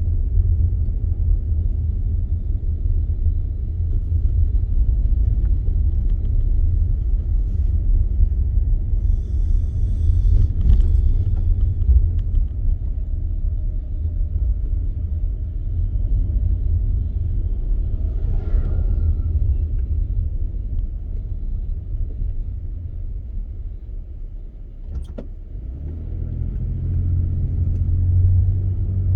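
Car driving, with a steady low rumble of road and engine noise. It eases off near the end, then builds again with a rising low hum as the car picks up speed.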